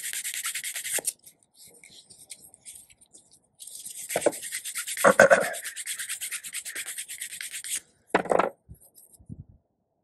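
Sanding stick rubbed in quick back-and-forth strokes over a plastic Bug-A-Salt Shred-ER cartridge, smoothing its surface. A short spell of sanding, a pause of two or three seconds with only a few light scrapes, then a longer spell of sanding with a couple of duller handling knocks in it.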